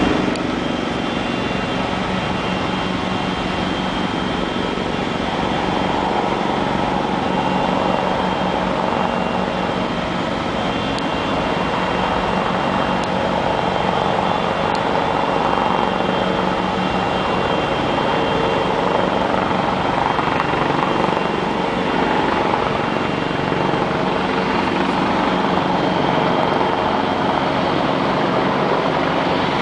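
Eurocopter EC225 Super Puma twin-turbine helicopter approaching, its rotor and turbine sound growing slowly louder. It is heard over a steady machinery drone carrying a few faint steady tones.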